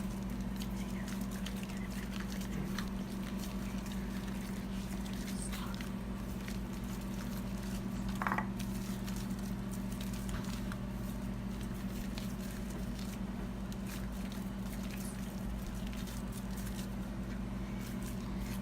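Hands kneading slime with shaving cream worked in, giving many small wet clicks and crackles over a steady low hum.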